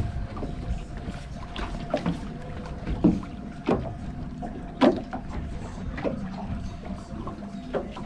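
Water slapping against the side of a drifting fishing boat in short irregular knocks, about six in a few seconds, over a steady low rumble.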